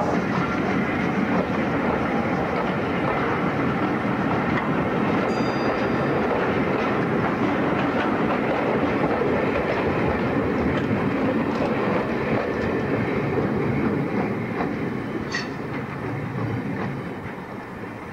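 Steam-hauled passenger train behind LNER K4 2-6-0 No. 3442 The Great Marquess rolling past, its coach wheels clattering over the rails. The sound is steady at first, then fades over the last few seconds as the train draws away.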